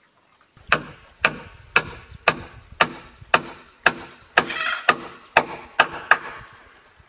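Hammer driving nails into a wooden roof frame: about a dozen steady blows, roughly two a second, each with a brief ring.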